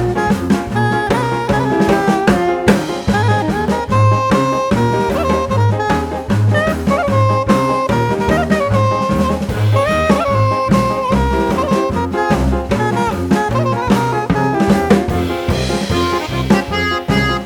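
Background music: an upbeat jazzy instrumental with a lead melody over a steady bass and drum beat.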